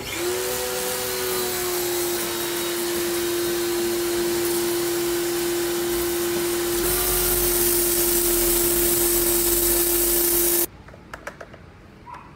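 Fujihama FJB-302 electric pressure washer (1400 W, 80 bar) running and spraying: a steady motor hum with a hissing water jet that grows louder about seven seconds in, then cuts off suddenly near the end.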